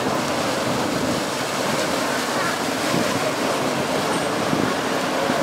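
Motorboat running on a canal, its engine and churning wake heard as a steady wash of noise, with faint voices in the mix.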